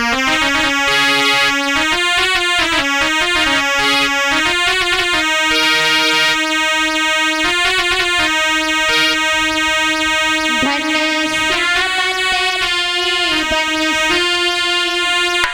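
Electronic keyboard playing a melody of held notes that move step by step, with no singing or drums: an instrumental opening to a Krishna bhajan.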